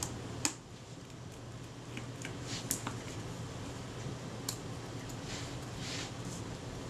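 Small metal clicks and scrapes of tweezers and a tiny screw being worked out of a camera shutter's mechanism plate, a few sharp ticks with a soft scrape near the end, over a steady low hum.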